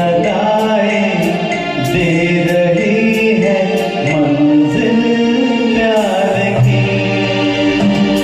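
Hindi film song performed live: a sung melody with gliding, held notes over a backing track with a light, regular percussion beat.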